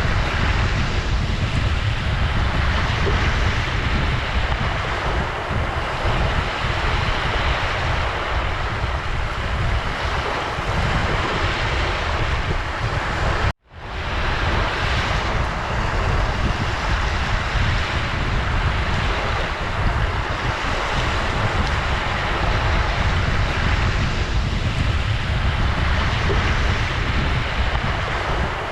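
Ocean surf: waves washing in a steady rush with a deep low rumble, swelling gently every few seconds. About halfway through it cuts out for a moment and fades straight back in.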